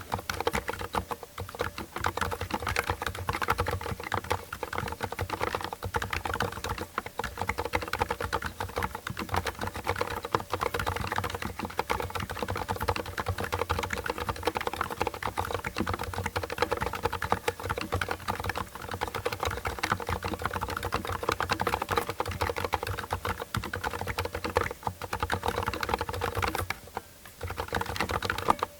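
Continuous fast typing on a Thinkway Tauche.T BW mechanical keyboard with Cherry silent red switches and PBT keycaps: a dense, muted clatter of keystrokes, pausing briefly near the end. A little case resonance and spring noise can be heard, which the reviewer puts down to the switches.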